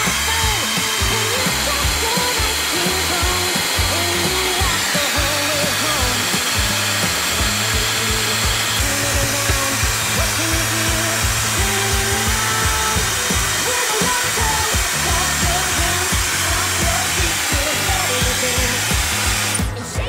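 Hand-held hair dryer blowing steadily at full power, with background music under it; the dryer stops just before the end.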